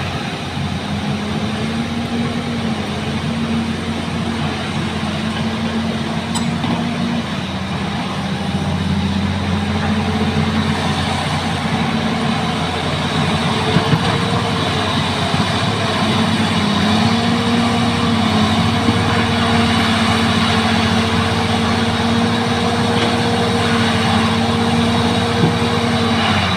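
Diesel engine of heavy earth-moving machinery running continuously under heavy load, its pitch rising and dipping several times as the load changes.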